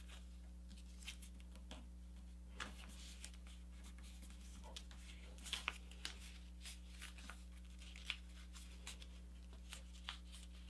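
Paper airplane being folded and creased by hand: faint rustling with scattered small crackles and clicks of the paper, a little louder in the middle, over a steady low hum.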